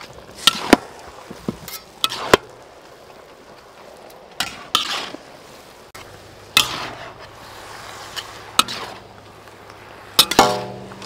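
Metal spatula and ladle clanking and scraping against a large steel wok as noodles and vegetables are tossed in a stir-fry. There are a few sharp clanks in the first couple of seconds, then a scraping sweep every two seconds or so.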